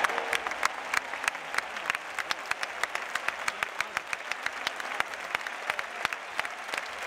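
Large bullring crowd applauding: many scattered, uneven hand claps.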